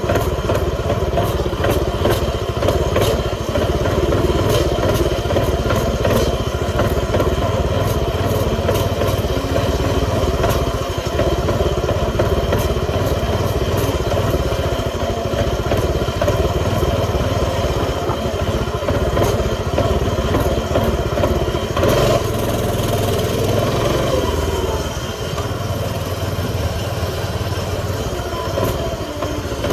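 A small pocket-bike engine runs steadily for the whole stretch with a rattling clatter. The engine note changes about 22 seconds in and runs a little quieter near the end.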